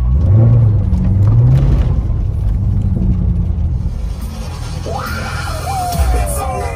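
Background music with a heavy bass line, its notes moving up and down. About five seconds in, a higher melodic line with sliding notes comes in above it.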